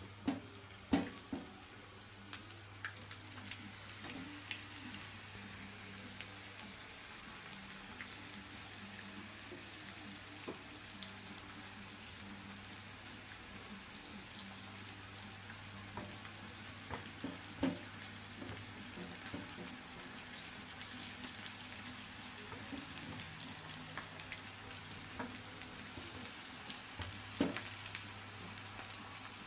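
Floured banana-stem slices deep-frying in boiling oil: a steady sizzle full of fine crackles. A few sharp knocks stand out, the loudest about a second in, near seventeen seconds and near the end.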